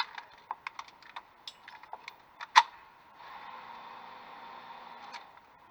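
Small metallic clicks and rattles of an MP5 submachine gun being handled to clear a jam, with one sharp, louder clack about two and a half seconds in. A faint steady hum follows for about two seconds.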